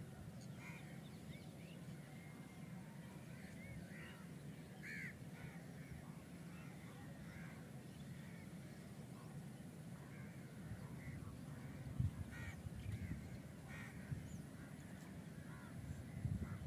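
Birds calling in short, scattered chirps over a low, steady background rumble, with a louder low swell right at the end.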